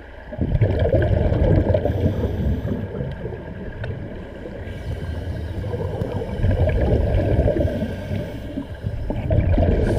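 Churning, gurgling water with a muffled, low rumble that comes in about half a second in and swells and eases without a beat.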